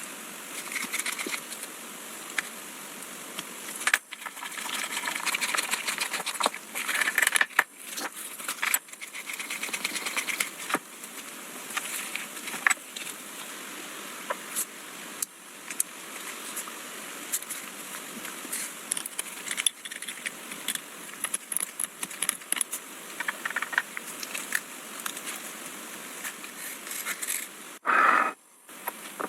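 Hand restoration work on old telescope parts: stretches of scraping and rubbing noise with many small clicks and knocks of metal parts being handled, and a short louder burst near the end.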